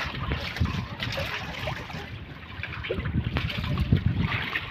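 Water lapping and trickling, with an irregular low rumble underneath.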